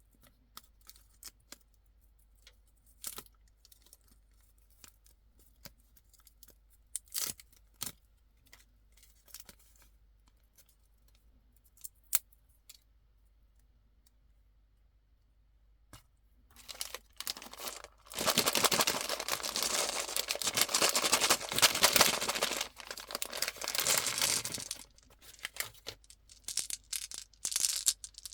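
Candy wrappers being handled. First come sparse light clicks and rustles, then, past the halfway mark, several seconds of loud crinkling and tearing of the plastic packaging, which breaks up into scattered crackles near the end.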